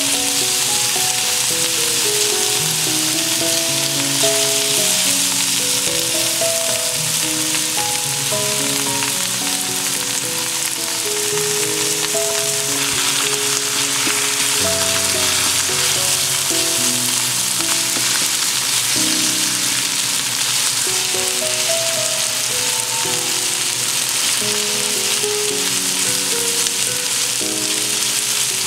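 Beef slices, onion and eggplant sizzling steadily in a frying pan as they are turned over with silicone tongs, with soft background music playing a melody.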